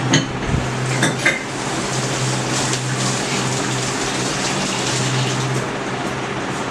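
A steady mechanical hum, like a fan, runs throughout. A few light clinks of steel dishes come in the first second and a half.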